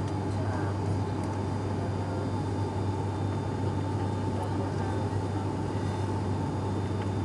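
Cabin noise of an ATR 72-500 twin turboprop climbing out after takeoff: a steady drone with a deep propeller hum and a thin higher steady tone over it.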